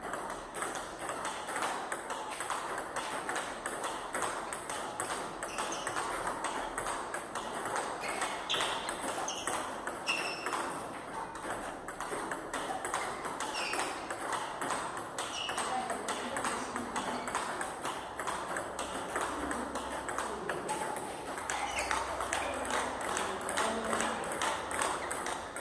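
Table tennis ball in a continuous practice rally: a steady run of sharp clicks as the celluloid ball strikes the rubber-faced rackets and bounces on the table top.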